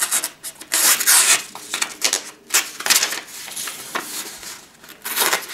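Blade of an Extrema Ratio Task C knife drawn through a sheet of paper in several rasping strokes, the loudest about a second in. The paper scrapes and tears rather than slicing cleanly, a sign the edge is not sharp enough for the paper test.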